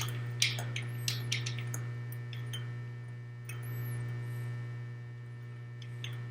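A few irregular light clicks and knocks of hand tools being handled on a small engine's flywheel nut, loudest about half a second in, over a steady electrical hum.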